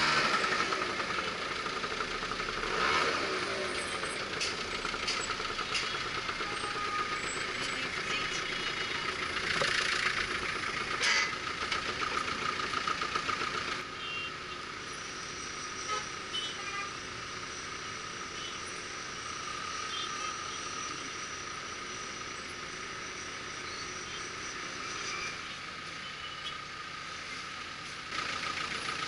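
City street traffic at an intersection, with vehicles passing and a steady engine hum underneath. About ten seconds in there are a couple of brief, louder clatters.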